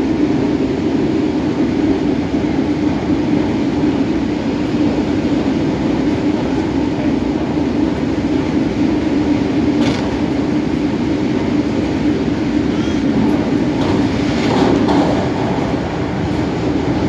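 Running noise inside an MTR A-Train car at speed: a steady rumble and drone from wheels on rail. There is a sharp click about ten seconds in, and a few brief higher-pitched sounds a few seconds later.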